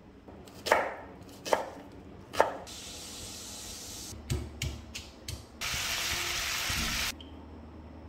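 Kitchen work sounds: three sharp knocks, then a run of lighter clicks and clatters, then a steady hiss lasting about a second and a half.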